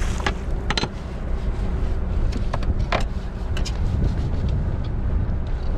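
Steady low rumble of a fishing boat's engine with wind, broken by a few short, sharp clicks and knocks as a halibut is handled on a steel cleaning table.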